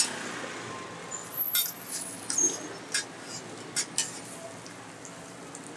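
Metal spatula clinking and scraping against a flat steel roti griddle as a roti is turned and pressed: a string of sharp, irregular metallic clinks, some ringing briefly.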